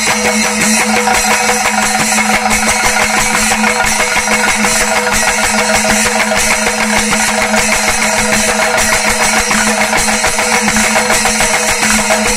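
Ensemble of thimila, Kerala hourglass hand drums, beaten together in fast, dense strokes at a steady level.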